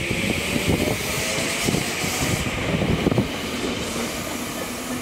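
A Tokyo Metro 7000 series electric train running along the platform, with a steady rumble and hiss and scattered wheel knocks from the rails.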